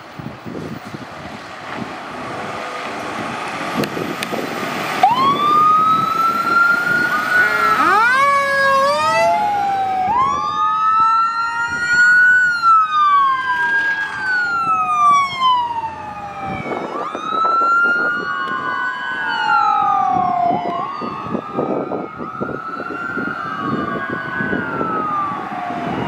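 Emergency vehicle sirens passing: a fire engine's Federal Q mechanical siren together with electronic wail sirens. Several rising-and-falling wails overlap, with a brief fast warble near the start of the sirens. Truck engine and road noise grows over the first few seconds.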